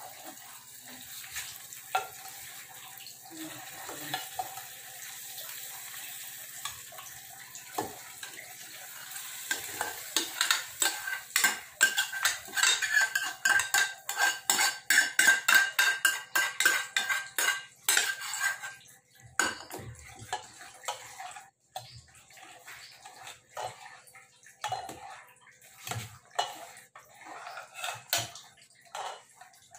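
A hot tadka sizzles in an aluminium frying pan, then a metal spoon scrapes and taps the pan rapidly as the tempering is emptied into dal in an aluminium pressure cooker. Near the end come slower clinks of the spoon stirring in the pot.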